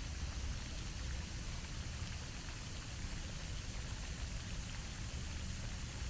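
Pond fountain's jet of spray falling back onto the water: a steady, even splashing hiss, with a low rumble underneath.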